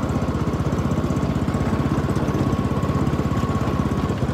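Small engine of a motorized rail skate trolley running steadily under way, with a rapid, even chugging pulse and a faint steady high tone over it.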